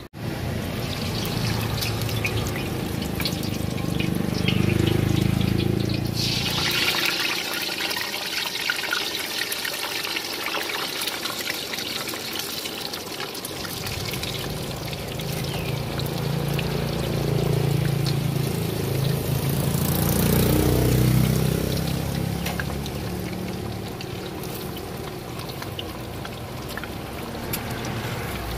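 Meatballs deep-frying in a pot of hot oil: a continuous sizzling and bubbling, with a low rumble coming and going underneath. About six seconds in, the sizzle turns brighter and hissier.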